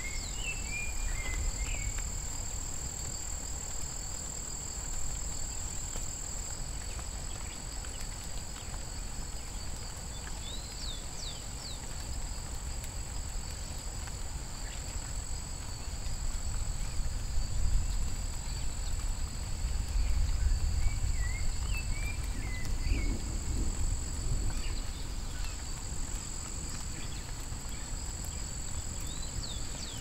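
Forest ambience: a steady high-pitched insect drone, with a few short bird chirps near the start, about a third of the way in and again around two-thirds in, over a low rumble that swells through the middle.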